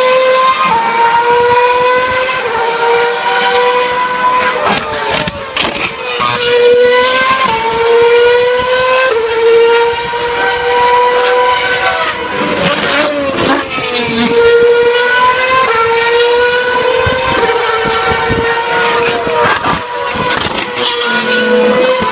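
Formula 1 car engine at high revs, its pitch climbing through each gear and dropping sharply at every upshift, several shifts in a row, with a brief lower stretch near the middle as it comes off and picks up again.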